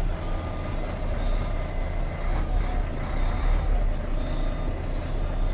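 Tractor-trailer's diesel engine running steadily at low revs while the rig reverses slowly, heard from inside the cab.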